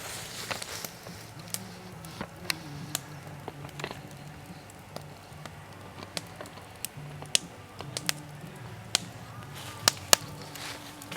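Campfire crackling, with sharp pops scattered through it, over soft background music with a low, slowly moving line of held notes.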